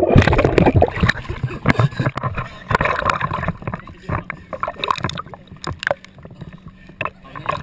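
Water splashing and bubbling around a camera plunged under the lake surface, loudest in the first second. It is followed by irregular small sloshes and drips of water against the camera housing that grow quieter after it comes back up.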